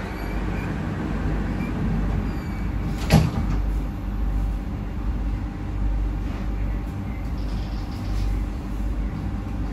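Inside the cabin of an SMRT C151B train: the sliding passenger doors shut with a single sharp bang about three seconds in, over the train's steady low rumble.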